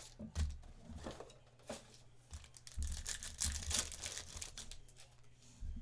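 Packaging of a Panini Prizm Football hobby box being torn open, wrappers crinkling in short, irregular bursts.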